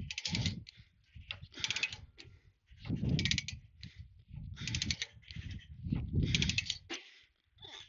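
Ratchet chain binder being cranked to tighten a tie-down chain that is coming under tension: each stroke of the handle gives a quick run of ratchet clicks, five strokes about a second and a half apart.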